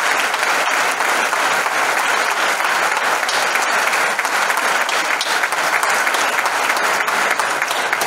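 An audience applauding steadily, a dense even patter of many hands clapping.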